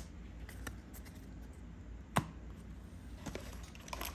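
Trading cards being handled and flicked through, a few soft clicks and taps with one sharper tap about two seconds in, over a low steady hum.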